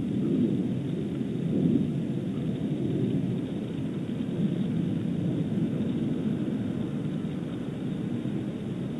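Wind on an outdoor nest-camera microphone: a steady low rush with small swells, one a little louder about a second and a half in.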